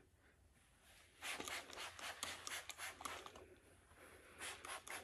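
Faint rustling and scraping of fingers working through box braids at the scalp, in a cluster of short strokes from about a second in and again briefly near the end.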